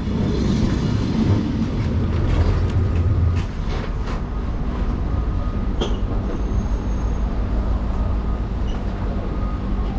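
Lisbon Remodelado heritage tram running, heard from on board: a steady low rumble of the motor and wheels on the rails, heaviest in the first few seconds, with a few sharp clicks around the middle.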